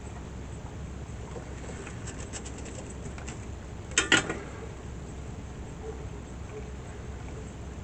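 Light clicks and faint crackling, then a short cluster of sharp clicks about four seconds in, the loudest sound: small tools handled at a soldering bench while a wire splice is soldered, over a steady low background hum.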